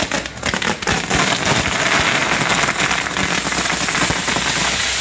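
Fireworks on a castillo (pyrotechnic tower) going off: a quick run of sharp firecracker cracks at the start runs into a dense, continuous crackling and hissing of burning pyrotechnics.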